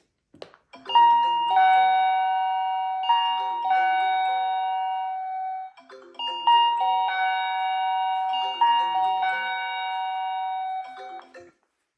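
Doorbell chime playing a bell-like tune of several held notes, heard twice in a row, after a short click at the start.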